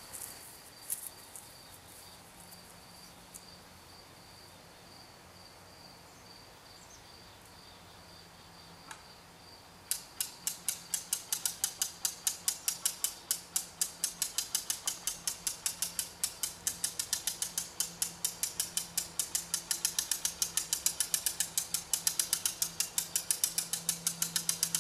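A faint, steady high whine, then, about ten seconds in, rapid, even mechanical clicking at about five clicks a second that keeps on without a break.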